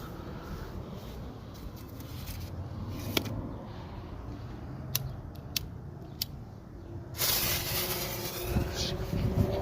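Steady low rumble with a few faint sharp clicks, then about seven seconds in a firework fuse catches and hisses loudly and steadily before the 5-inch canister shell fires.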